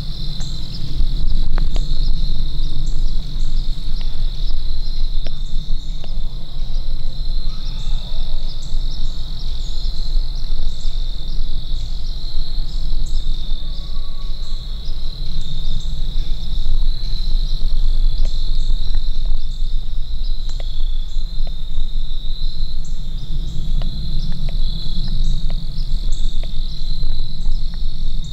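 Steady, high insect chorus of crickets, trilling without a break, over a constant low rumble, with a few faint clicks scattered through.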